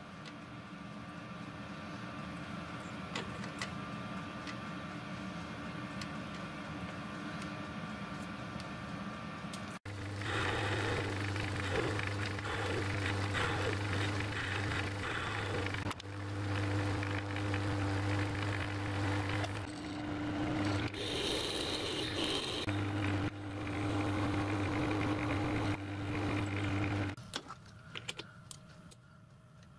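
Metalworking lathe turning a small steel ball bearing held in its three-jaw chuck. There is a quieter steady hum at first. From about ten seconds in the lathe runs louder, with a steady low hum and a held tone that dip briefly a few times, then it stops near the end, followed by a few light clicks.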